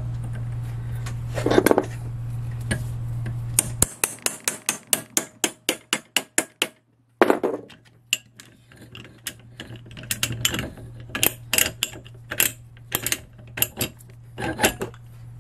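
A steady low hum for the first few seconds, then a rapid run of light metallic clicks, about five a second and fading away. After a brief gap come irregular metal taps and clicks from a hand pipe threader's die head being fitted and worked on iron pipe.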